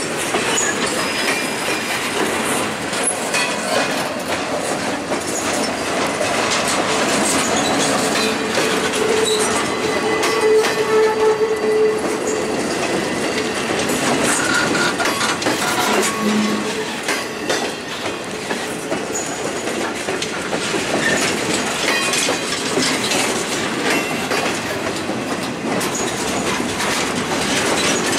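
Freight train of TTX flatcars rolling past: a steady rumble of steel wheels on the rails, with rhythmic clickety-clack over the rail joints and occasional thin wheel squeals.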